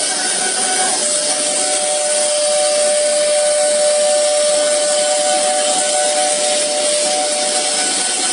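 Multi-spindle CNC nesting router running on MDF board, its router spindles and dust extraction making a steady, loud whine. A second steady tone comes in about a second in and drops out near the end.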